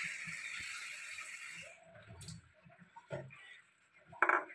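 Faint handling sounds at a pot of dal in water: a light steady hiss that stops after about a second and a half, then scattered soft knocks and clicks, and near the end a brief splash as a hand reaches into the liquid to fish out the orange pieces.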